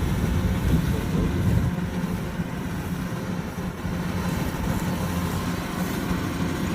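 Kubota DC-105X combine harvester running steadily, its diesel engine giving a low, even drone.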